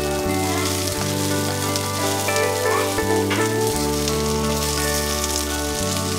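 Eggplant slices sizzling as they pan-fry in oil, under soft background music of held chords that change every second or two.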